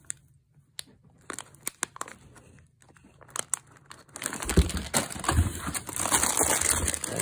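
Crinkling of plastic snack wrappers as packets are handled, with only a few faint clicks at first. From about four seconds in come louder rustling and crinkling, with a couple of dull thumps as packets are moved about in a cardboard box.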